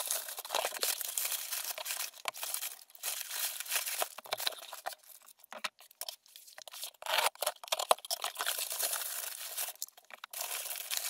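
Crinkled brown kraft packing paper rustling and crackling as it is pulled out of a cardboard shipping box by hand, in irregular handfuls with short lulls.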